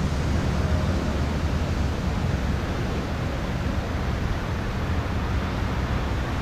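Steady outdoor background noise with a low rumble and hiss: wind blowing across the camera microphone.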